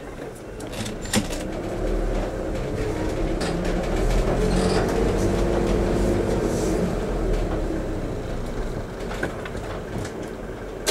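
Southeastern high-speed electric train (Class 395) passing through a level crossing: a rumble that swells over a few seconds and then fades away. There is a sharp knock about a second in and another near the end.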